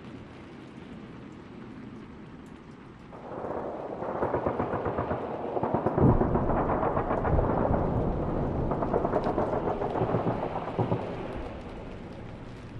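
War-zone ambience: low hiss, then about three seconds in a rumble of distant explosions and dense crackling gunfire swells up, with a heavy thud near the middle, before easing back near the end.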